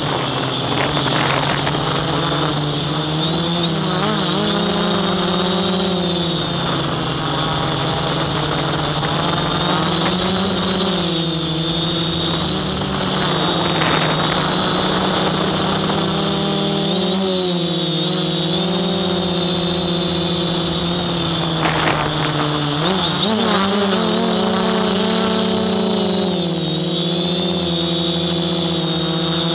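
Quadcopter's electric motors and propellers buzzing, heard from a camera mounted on the craft. The pitch keeps rising and falling as the throttle changes, over a thin steady high whine.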